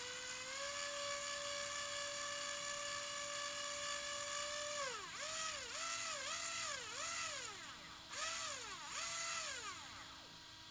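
ARRMA 4S BLX brushless RC motor, fitted with new 5x13x4 sealed bearings, spinning under power with a steady high whine, then revved up and down in a string of short throttle blips before it spins down and stops. The owner takes the running as a sign that the bearing fix worked.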